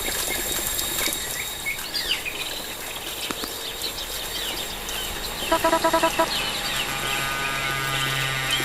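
Bird-like chirping over a noisy background, with a quick run of about seven short beeps about five and a half seconds in, followed by a low steady hum.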